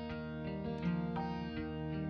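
Instrumental background music, a melody of pitched notes changing two or three times a second.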